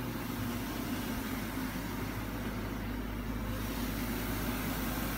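Electric mist humidifier running with a steady motor hum and airy hiss, the hiss growing stronger about three and a half seconds in.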